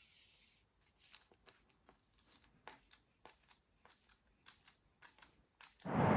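Faint, irregular clicks of a small screwdriver turning the three screws that hold an RC plane's propeller blades in their hub. A high whine fades out in the first half-second, and a louder short rasping noise comes near the end.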